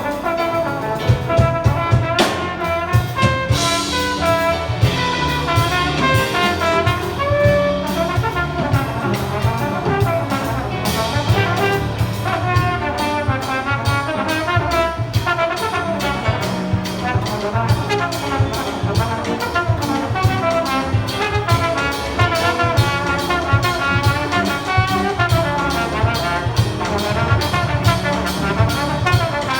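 A jazz big band plays full ensemble, with trumpets and trombones carrying the lines over a steady drum-kit beat.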